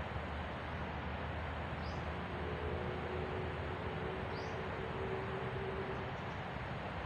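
Forest ambience: a steady hiss with a short high bird chirp repeated about every two seconds, and a faint low hum from about two and a half to six seconds in.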